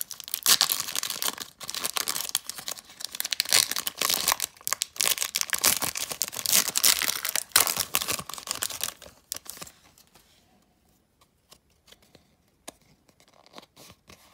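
Foil wrapper of a Pokémon Chilling Reign booster pack being torn open and crinkled for about nine seconds, then only a few faint clicks.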